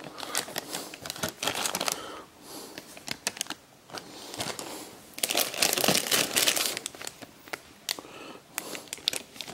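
Clear plastic parts bags crinkling as bagged plastic model-kit sprues are handled, in irregular bursts, loudest in a stretch a little past the middle.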